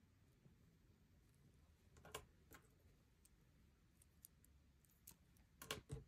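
Faint clicks and taps of small model landing-gear parts being handled and set down on a tabletop: a couple about two seconds in, and a quick cluster near the end.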